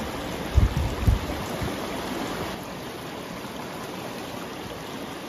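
Water of a small river rushing steadily over a shallow riffle, with two loud low thumps about half a second and a second in. The rushing turns a little softer about halfway through.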